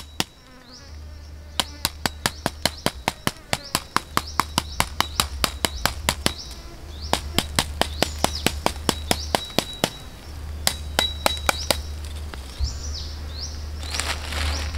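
Crackling and popping from the leaf-wrapped chicken grilling over charcoal: sharp pops, several a second, fading out in the last few seconds.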